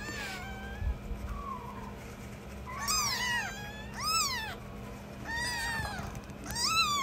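Newborn kitten mewing: a couple of faint cries, then from about three seconds in, four louder high-pitched cries about a second apart, each rising and then falling in pitch.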